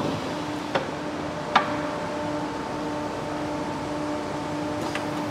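WMW BS 63 pillar drill with a multi-spindle drilling head running with a steady hum that pulses about twice a second. Two sharp clicks in the first two seconds and a third near the end.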